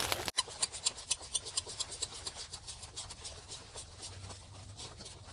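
Hand ratchet clicking quickly and evenly, several clicks a second, while backing out a throttle-body mounting bolt with a star (Torx) bit; the clicks thin out near the end.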